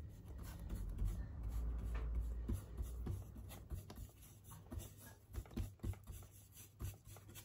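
Paintbrush working oil paint onto a linen-covered panel: faint, irregular scratchy strokes and light taps. A low rumble underlies the first two seconds or so.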